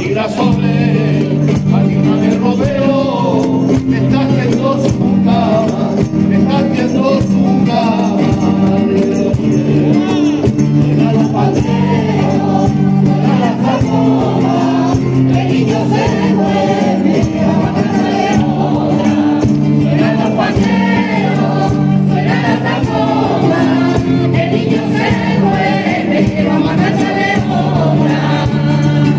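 Group of voices singing a Christmas carol together, accompanied by strummed classical guitars, with hand clapping along.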